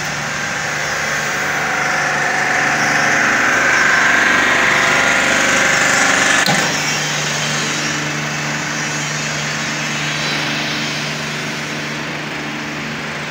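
Denjet 500-bar high-pressure water blaster's engine running steadily. A hiss rides over it in the first half; a click comes about halfway through, after which the hiss drops away and the engine runs on.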